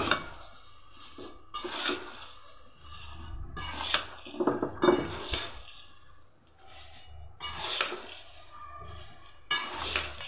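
A metal spoon scrapes and clanks against a large metal kadai as dry roasted poha chivda is stirred and tossed, in irregular strokes every second or two. A sharp clank right at the start is the loudest.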